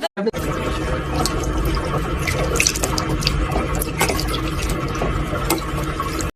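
Running water, like a tap running into a sink, with scattered clicks and splashes.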